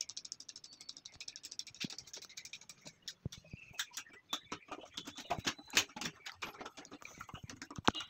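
Screwdriver clicking against the screw heads and metal body inside a cylindrical door lock as its two mounting screws are tightened a little at a time: a run of small, irregular clicks that grows denser and louder about halfway through.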